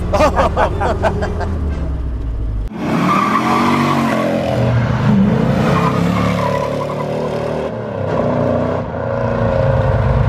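Willys M38 jeep's four-cylinder flathead engine pulling while being driven, its pitch rising and falling as it revs through the gears. The sound changes abruptly about two and a half seconds in.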